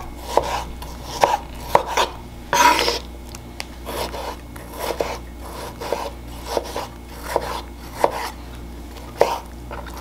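A large kitchen knife dicing peeled tomatoes on a wooden cutting board: irregular knocks of the blade on the wood, about one or two a second, with one short scrape after about two and a half seconds.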